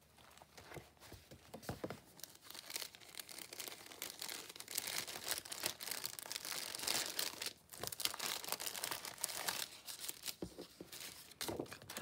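Clear plastic sleeves of a display folder crinkling and rustling as pages are turned and a paper sheet is handled inside a sleeve; quieter for the first couple of seconds, then a near-continuous run of crinkles.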